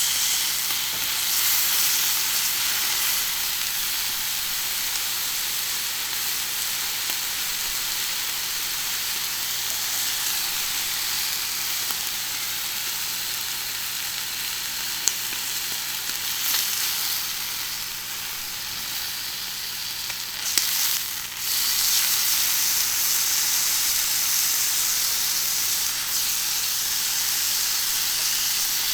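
Beef tongue and skirt steak sizzling steadily on a hot iron griddle. There is a sharp click about halfway through and a couple more about two-thirds of the way in, after which the sizzle gets a little louder.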